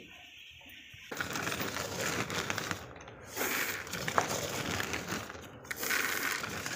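Cattle feed pellets poured from a tin into a plastic tub: a dry, rattling hiss of pellets landing on pellets. It starts about a second in and comes in three pours with short breaks between them.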